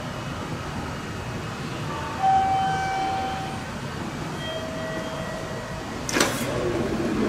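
Station concourse ambience: a steady hum with two electronic beeps, a long one about two seconds in and a shorter, lower one near five seconds, then a sharp clack about six seconds in.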